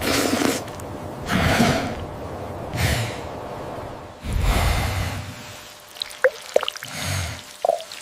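A sleeping cartoon bear breathing heavily and sniffing, four breaths in the first five seconds, with no snore. Near the end come a few small, sharp drip-like plinks.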